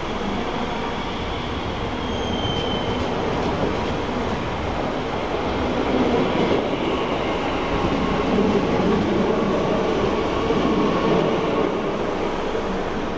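DB class 442 (Bombardier Talent 2) electric multiple unit running past close by as it pulls out of the station, louder as it draws level, then easing off. A brief high squeal comes about two seconds in.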